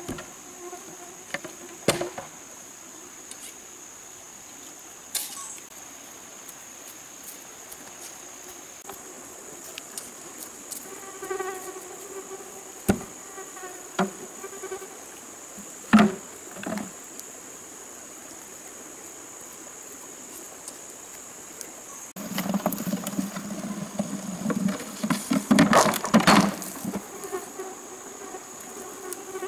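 Steady high-pitched insect drone, with occasional sharp knocks of green bamboo poles being handled and set down, and a busy run of bamboo clattering for several seconds near the end.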